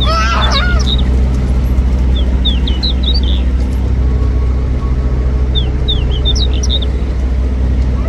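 Steady low hum of street traffic with two short bursts of quick, high chirps from small birds a few seconds apart, and a brief high wavering call right at the start.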